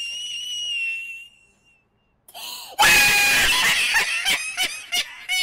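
A man laughing hysterically. A long high-pitched squeal fades out, there is a short pause, then he breaks into loud screaming laughter about three seconds in.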